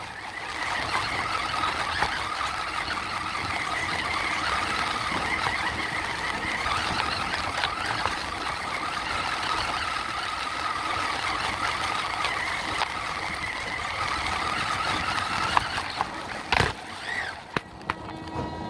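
Radio-controlled truck's motor whining steadily with a slight waver, cutting off about sixteen seconds in, followed by a sharp click.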